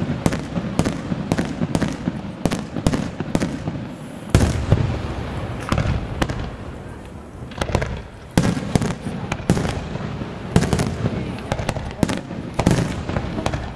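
Aerial firework shells bursting in a rapid series of sharp bangs, several a second at times, each followed by a rolling echo, with a few heavier booms standing out through the sequence.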